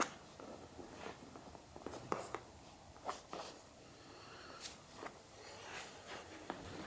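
Quiet handling sounds: soft rustling and rubbing of hands on skin and clothing, with a few faint short clicks scattered through and a sharper one at the very start.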